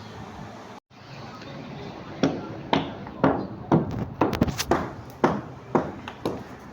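Hammering: sharp, ringing blows at about two a second, starting about two seconds in after a brief dropout in the sound.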